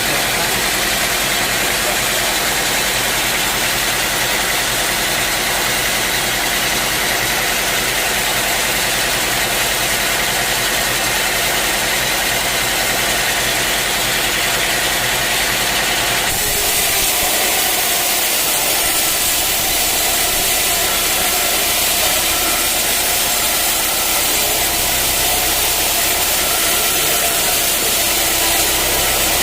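Sawmill machinery running steadily: an engine hum under a loud, even hiss. The sound changes abruptly about two-thirds of the way through.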